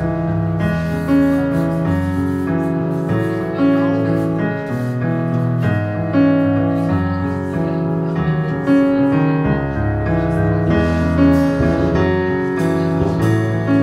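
Jazz piano trio playing live: piano carrying the tune over bass and drums, with a fairly even pulse of chords and notes.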